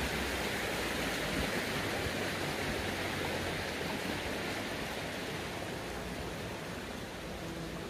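A steady rushing noise, slowly getting fainter.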